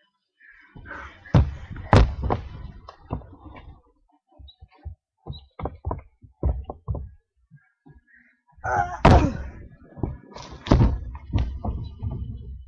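Thuds, knocks and bangs of a person clambering and jumping about on a boat's deck and console. A dense run of thumps comes about a second in, then scattered single knocks, then another loud run of thumps from about nine seconds.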